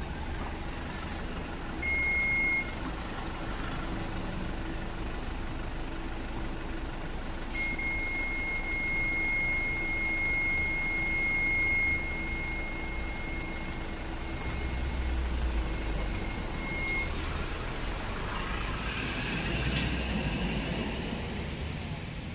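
A white van's engine running close by, with a steady high-pitched warning beep that sounds briefly about two seconds in and is then held for about nine seconds. Near the end the engine note rises as the van moves off.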